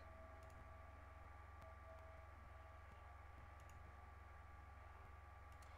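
Near silence: a steady low hum of room tone with a few faint computer mouse clicks, in pairs, about three times.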